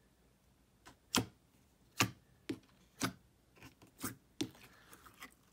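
Nickelodeon slime being stretched and squeezed by hand, giving off a series of sharp wet clicks and pops, about eight of them at uneven intervals.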